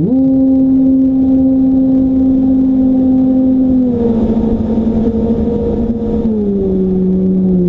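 Radio-controlled plane's motor and propeller humming at a steady pitch. The pitch jumps up sharply as the throttle is opened at the start, then steps down twice as the throttle is eased back, with rushing wind noise underneath.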